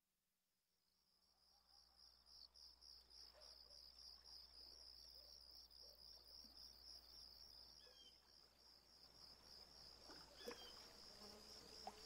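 Faint chorus of crickets chirping in a steady, rapid pulse, fading in after about a second and a half of silence, with a low hum beneath. A single light knock about ten seconds in.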